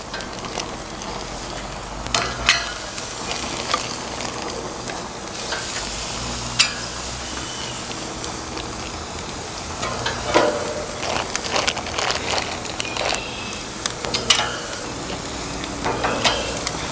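Marinated chicken drumsticks sizzling on the hot grates of a gas grill, a steady hiss with scattered sharp clicks and crackles.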